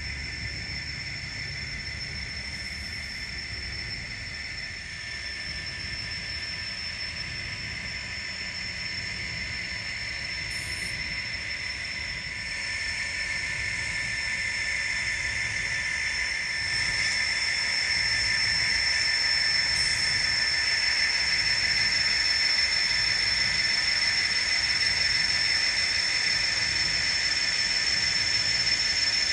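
N scale model train rolling along the track: a steady rolling hiss from the wheels with a constant high electric-motor whine, growing louder over the second half as the Southern Pacific diesel locomotives approach.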